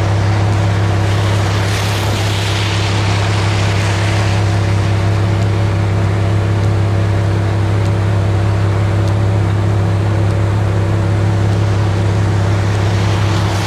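A vehicle engine idling with a steady low hum, under a constant rush of wind.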